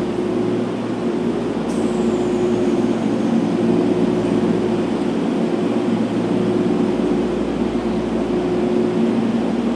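Steady low hum of a Tokyo Metro Chiyoda Line train standing at an underground platform with its doors shut. The pitch stays level, so the train is not yet pulling away. A brief click comes a little under two seconds in.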